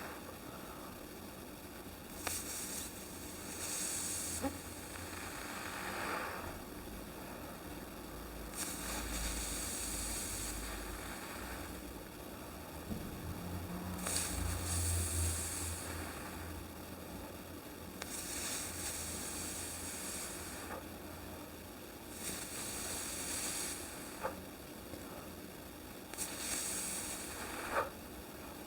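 Breath leaking slowly out through pursed lips from puffed-out cheeks: soft hisses of escaping air, repeated roughly every four to five seconds, with a few small lip clicks.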